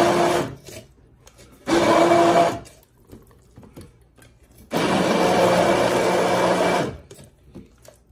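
Hand-held immersion blender run in short bursts in a plastic beaker, puréeing a coriander-leaf mash: on briefly at the start, again for about a second, then for about two seconds, the last run with a deeper hum.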